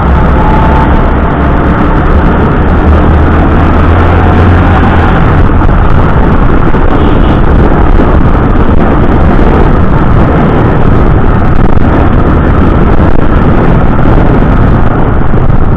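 Bajaj Discover motorcycle's single-cylinder engine running steadily under way, with a loud, even rush of wind and road noise over it.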